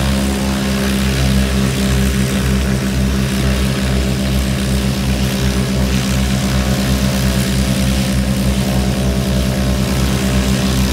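Cessna 195's radial engine and propeller running steadily at low power as the plane taxis, a rapid even pulse in its low drone.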